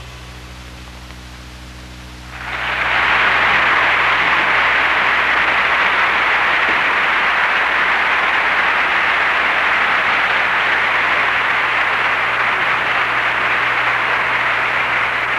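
The orchestra's final chord fades away, and about two seconds in a studio audience breaks into steady applause.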